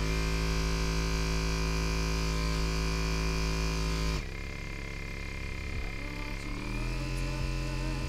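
O'yeet massage gun's brushless motor running with a steady pitched hum. About four seconds in, the pitch drops suddenly and the sound gets quieter as it switches to a lower speed. Near the end the pitch climbs back up as the speed is raised again.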